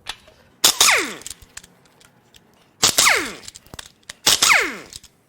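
Impact wrench hammering on a main cap bolt of a Ford 4.6L DOHC V8 in three short bursts, each winding down with a falling pitch when the trigger is released.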